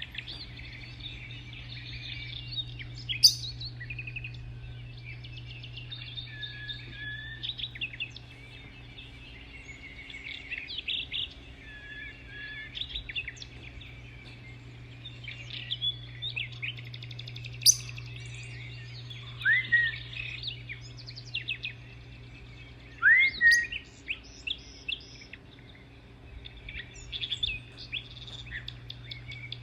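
Several small birds chirping and trilling continuously, with a few louder sharp calls and rising whistles scattered through, over a steady low hum.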